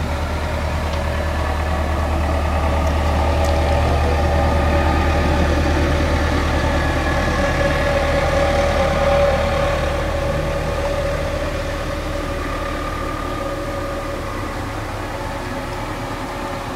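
Engine of a vehicle towing a boat trailer driving past: a steady hum that grows louder, peaks about nine seconds in, then fades away.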